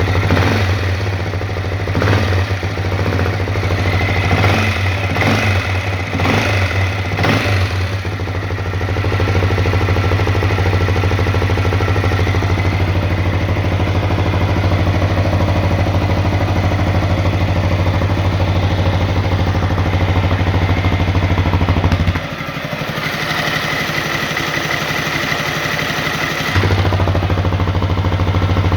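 Honda CRF250L single-cylinder four-stroke engine running at idle, the engine knock the owner set out to record. Several short, sharp sounds come over the first eight seconds, then it runs steadily. A little past two-thirds of the way through, its sound changes for about four seconds.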